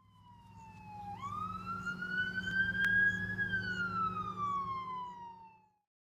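Emergency vehicle siren sounding one slow wail. The pitch dips, jumps up about a second in, climbs slowly, then falls steadily until it cuts off near the end, over a low steady hum.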